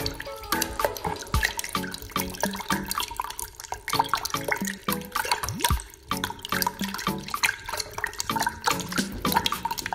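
A tightly packed crowd of koi carp splashing and slurping at the water surface as they jostle with mouths open, a constant run of quick wet splashes and gulps.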